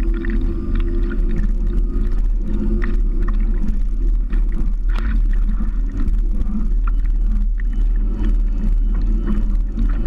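Water rushing and splashing against the hull of a small rotor-sail catamaran under way, over a steady low rumble. A faint steady hum sits underneath, with scattered small splashes.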